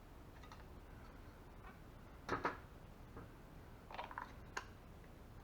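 A few short clicks and knocks from handling the small plastic decoy over a faint steady background: a sharp pair about two seconds in, and lighter ones near four seconds.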